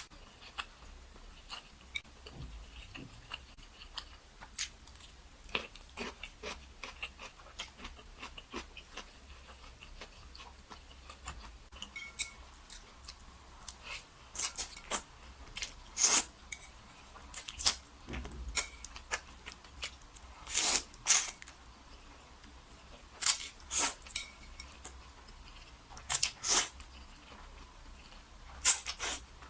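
Close-miked eating sounds: chewing, with many short sharp clicks and a few louder double clicks in the second half.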